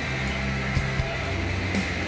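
Live rock band playing an instrumental passage: a steady droning wash of guitars and bass with a few drum hits.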